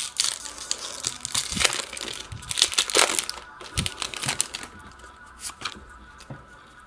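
Foil wrapper of a Pokémon trading card booster pack crinkling as it is torn open and the cards are pulled out. The crinkling is densest for the first three seconds or so, then thins to occasional lighter rustles and clicks.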